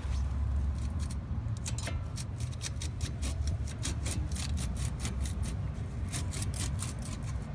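Metal clicking and scraping as a car's front brake caliper and pads are worked loose from the rotor by hand: a rapid string of sharp clicks, busiest in the middle, over a low rumble.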